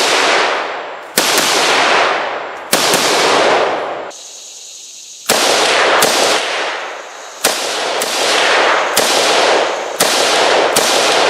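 Ruger Mini-14 semi-automatic rifle in .223/5.56 firing a string of shots, each sharp crack followed by a long echoing tail, with a pause of about a second near the middle.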